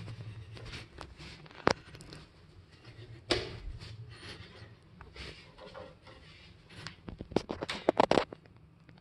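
Footsteps and handling noise over a faint low hum, with a sharp click about two seconds in and a cluster of clicks and knocks near the end as a glass sauna door is pulled open.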